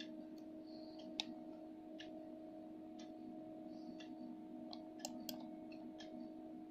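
Faint clock ticking about once a second over a steady low hum, with a few sharper extra clicks, the loudest about a second in.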